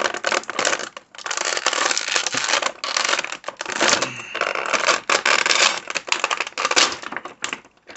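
Clear plastic blister packaging crinkling and crackling loudly as an action figure is pulled free of it, with short breaks about a second and about four seconds in.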